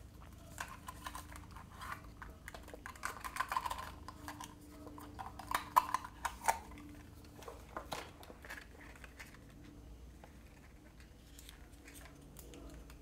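Light clicks, taps and crinkles of hands handling a toy's plastic blind-pack can and the small wrapped packets inside, busiest in the first half and sparser toward the end.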